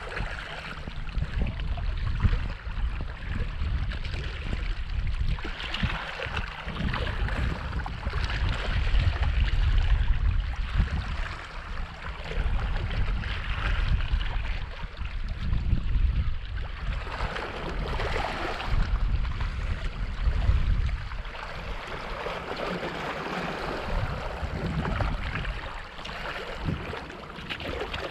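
Wind buffeting the camera microphone as a steady, uneven rumble, with shallow sea water washing over shoreline rocks in swells every few seconds.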